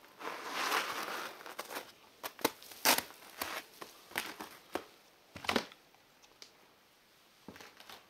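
Footsteps crunching over snow and broken debris, then about half a dozen sharp knocks as feet land on loose boards and rubble, the loudest about three seconds in; it goes faint in the last couple of seconds.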